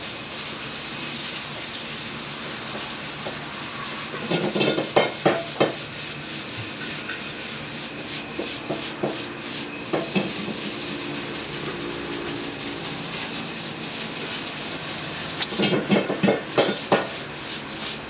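Garlic fried rice frying in a wok with a steady sizzling hiss, while a metal ladle scrapes and clanks against the wok in quick strokes, in a flurry about four seconds in and again near the end.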